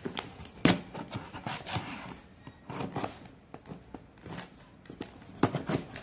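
Cardboard shipping box being handled and shifted by hand: irregular knocks and rubbing, with sharper knocks just under a second in and again near the end.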